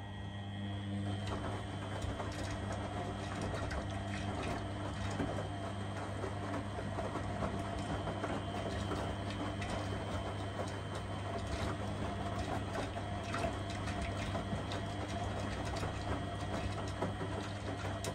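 Beko front-loading washing machine in its wash phase, the drum motor humming steadily as the wet, sudsy load tumbles, with a constant clatter of small clicks and rattles.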